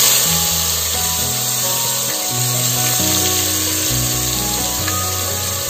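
Chopped onions sizzling in hot oil in a pressure cooker, a steady hiss that starts suddenly, under background music with a stepping bass line.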